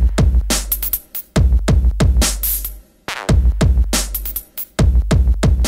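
Electronic music with a heavy drum-machine beat and a deep bass, in short phrases with brief breaks.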